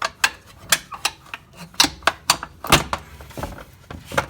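Mercedes W210 trim cover being pried off its clips with a screwdriver: a quick series of sharp clicks and knocks as the clips let go and the cover shifts.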